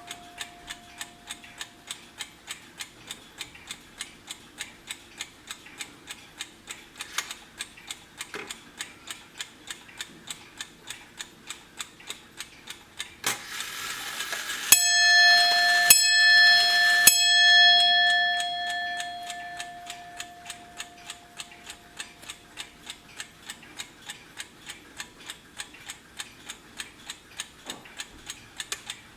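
Wehrle mechanical striking alarm clock ticking steadily and fast. About halfway through its strike train whirs into motion and the hammer strikes the bell three times, a second apart, each strike ringing on and fading over a few seconds.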